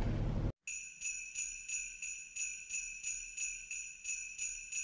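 Sleigh bells jingling in a steady, even beat, about three shakes a second, starting after a brief silence about half a second in.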